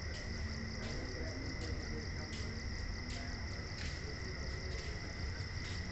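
Crickets chirring steadily and high-pitched, with a pulse about every three quarters of a second, over a low rumble and faint background voices.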